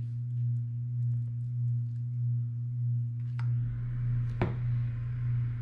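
A steady low electrical hum, one even tone with a faint overtone. Two light clicks come a little past halfway, and a faint rushing noise comes in at about the same time.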